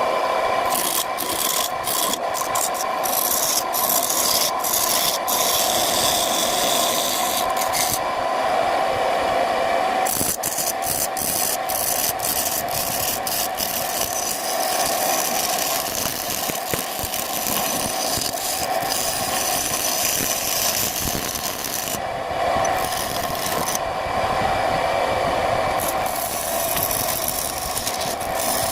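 Wood lathe running with a steady hum while a tool rasps against the spinning sappanwood blank. The rasping drops out briefly twice and then resumes, with a few short ticks in the first seconds.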